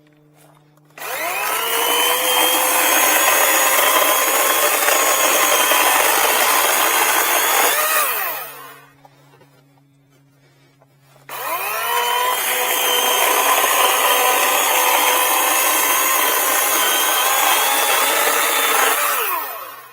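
Greenworks 80 V Pro battery chainsaw with a carbide chain cutting through a log, run twice for about seven seconds each. The motor whine rises as it spins up and falls away as the trigger is released, with a pause of about three seconds between the runs.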